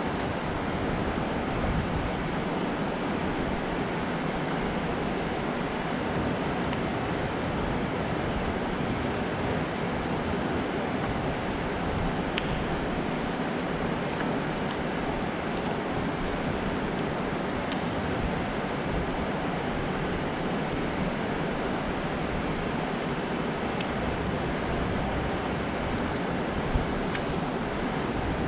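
Steady rush of water pouring over a concrete dam spillway and churning in the fast water below it.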